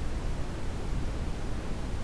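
Brown noise: a steady, deep hiss whose energy sits mostly in the low end and falls away toward the highs.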